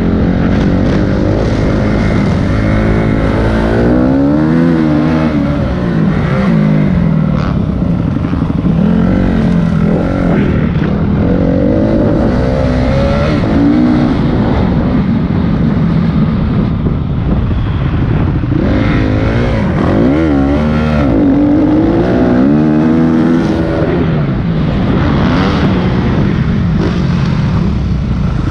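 Motocross dirt bike engine heard close up from an on-board camera, revving up and dropping off again and again as the rider works the throttle around the track.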